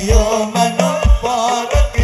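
Sholawat devotional song: a man singing a wavering Arabic-style melody into a microphone over a hadrah ensemble of frame drums, with deep drum beats in a steady rhythm and a held bass note beneath.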